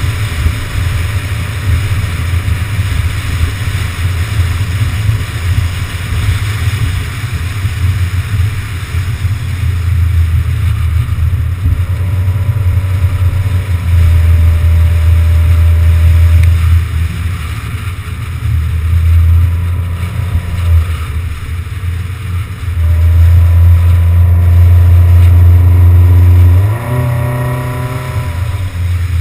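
Wind buffeting a car-mounted GoPro's microphone at road speed, a low rumble that swells and drops in waves over road and engine noise. Near the end the car's engine note rises briefly.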